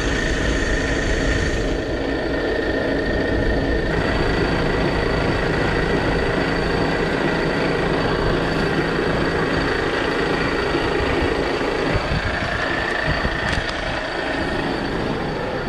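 Heavy truck's diesel engine idling steadily while it warms up.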